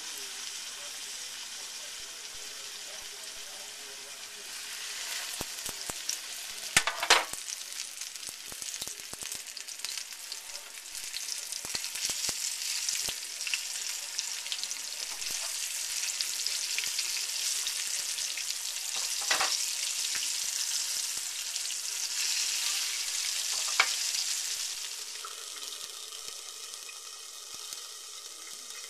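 Flour-dredged venison backstrap frying in hot oil in a cast iron skillet, a steady sizzle that grows louder as more pieces go into the pan, with a few sharp clicks. Near the end the sizzle drops and turns duller with a glass lid on the skillet.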